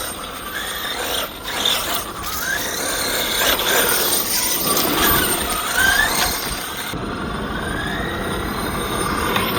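A 1/5-scale RC car driving off-road, its motor and drivetrain whining and rising and falling in pitch as the throttle is worked, with scattered knocks from the chassis and tyres.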